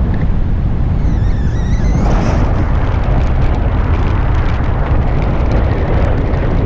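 Wind buffeting the microphone in flight under a paraglider, a loud, steady low rush.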